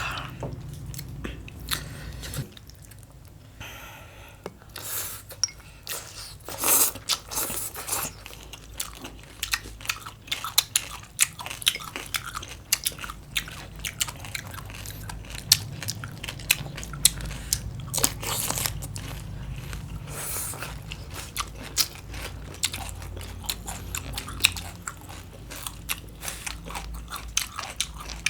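A person biting and chewing crunchy raw green papaya salad and cucumber close to the microphone: a steady run of crisp crunches with some louder bites scattered through.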